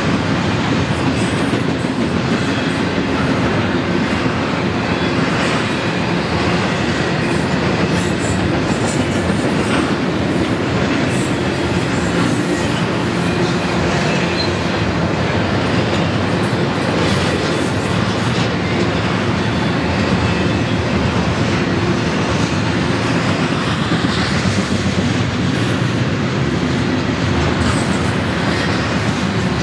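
Double-stack intermodal freight train's container well cars rolling past on steel wheels: a steady, loud rolling rumble with wheel clatter over the rails.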